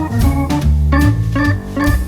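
Background music: a keyboard melody of quickly changing notes over a bass line, with a steady beat.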